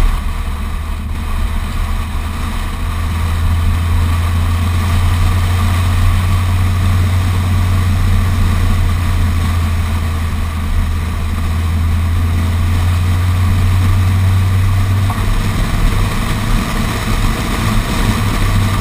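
A car driving steadily along a road, heard from a camera mounted outside on its body: a constant low drone of engine and tyres under a steady rush of wind on the microphone.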